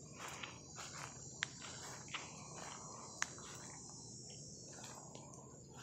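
Steady high-pitched chirring of crickets in an insect chorus, with soft intermittent rustling of brush and two sharp clicks, about a second and a half and three seconds in.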